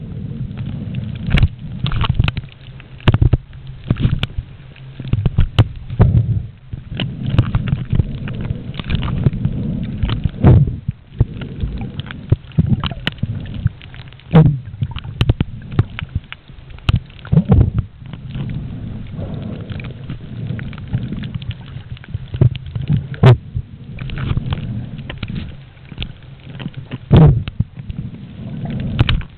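Muffled underwater sound picked up by a submerged camera: a low rumbling of moving water with frequent sharp clicks and knocks.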